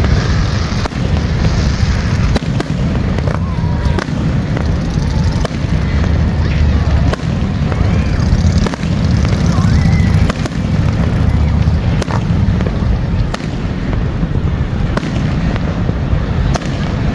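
Fireworks going off in repeated sharp bangs and pops over a steady low rumble.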